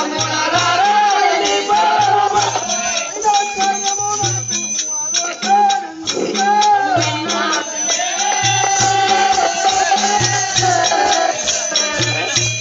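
Live folk music for a Yellamma bhagavatham dance-drama: a sliding, bending melody over a steady drum beat and jingling rattle percussion.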